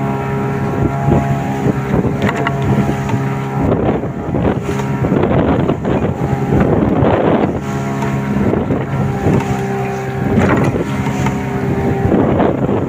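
A boat engine running steadily under way, with water rushing and splashing against the hull in repeated surges and wind buffeting the microphone.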